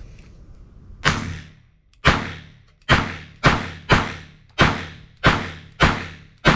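Walther P22 .22 LR pistol fired without a suppressor: nine sharp shots about half a second to a second apart, starting about a second in, each trailing off quickly.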